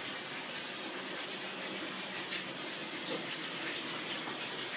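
Bathtub tap running, water pouring steadily into a filling tub as an even hiss.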